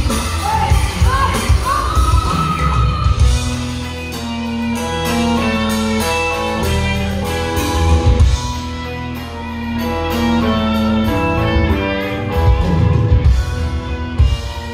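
Live band playing loud blues-rock through a stage PA: electric guitars over bass and drums, heard from the crowd. A voice sings a few sliding notes in the first three seconds, and the band then settles into steady held notes over a pulsing bass line.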